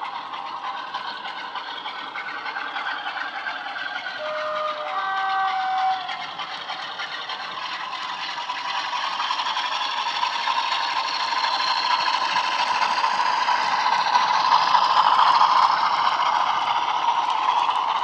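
Sound decoder in a model Class 47 diesel locomotive playing a recorded Class 47 (ETH-fitted) engine through the model's small speaker, with a two-note horn, a lower note then a higher one, about four to six seconds in. The engine sound grows louder as the model passes close, mixed with the rattle of the model's wheels on the track.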